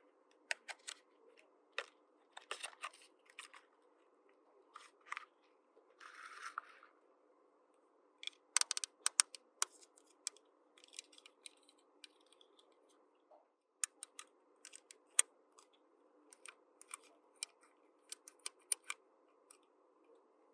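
Small plastic toy playset pieces and packaging being handled: scattered sharp clicks and taps, with a brief rustling scrape about six seconds in and a faint steady hum underneath.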